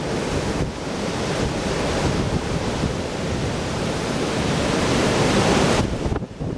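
Strong wind gusting and buffeting the microphone in a loud, steady rush; the gust builds and then drops off sharply near the end.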